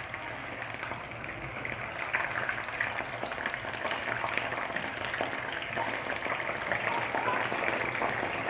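Flour-coated, partly thawed fish sizzling in hot oil in a frying pan: a steady sizzle full of small crackles and pops.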